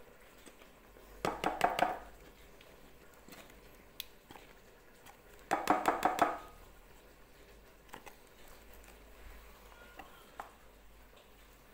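A carton of cooking cream is handled and emptied over a glass bowl, giving two short bursts of rapid tapping and crinkling: one a little over a second in, the other about halfway through. A few faint single ticks follow.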